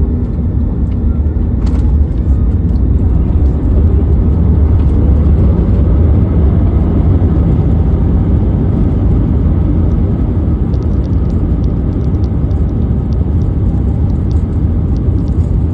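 Steady low rumble of an Airbus A321neo airliner heard from inside the cabin, with a faint tone slowly rising a few seconds in.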